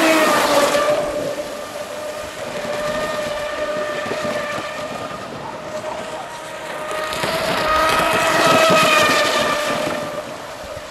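Brushless electric motor and propeller of an RC hydroplane racing boat running at speed: a steady high whine over the hiss of spray. It is loudest at the start and swells again about eight seconds in, then fades near the end.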